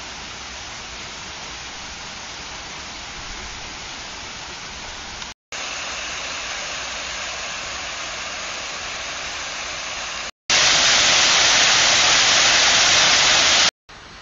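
Steady rushing of falling and flowing water, in three takes cut apart by brief dropouts. A river runs in the first and a curtain of water pours down from an overhead frame in the second; the last take, about ten seconds in, is much louder.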